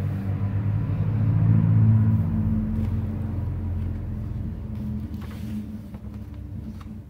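A low steady rumble with a droning hum that starts abruptly, swells to its loudest about two seconds in, then slowly fades.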